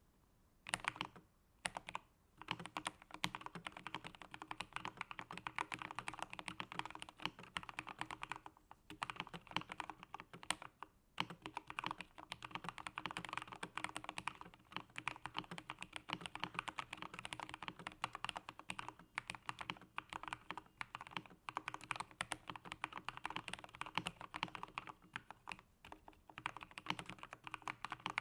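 Fast continuous typing on an Epomaker GK87S mechanical keyboard with lubed Gateron Milky Yellow linear switches, a steel plate and foam-damped case, keystrokes clacking in quick runs with a few short pauses.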